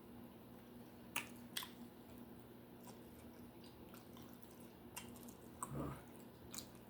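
Close-miked chewing of a juicy cheeseburger, soft and wet, with a few sharp mouth smacks and a brief low sound near the end.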